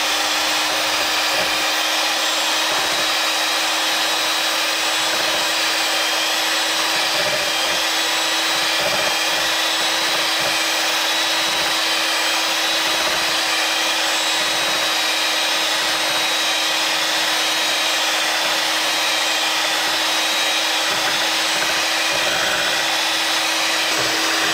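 Handheld electric mixer running steadily on its first (low) speed, its beaters whisking chocolate mousse filling mix and milk in a glass bowl: a steady motor hum with a high whine.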